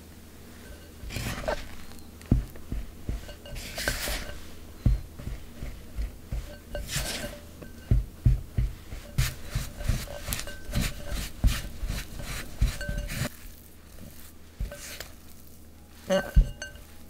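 Silicone spatula scraping and knocking against a glass mixing bowl as dry cocoa and flour are folded into butter into a stiff dough: irregular small knocks with a few longer scrapes.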